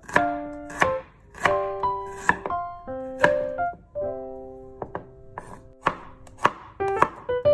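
Kitchen knife chopping shallots and then garlic cloves on a wooden cutting board: sharp knocks of the blade on the board at irregular spacing, about one or two a second. Background piano music plays under the chopping.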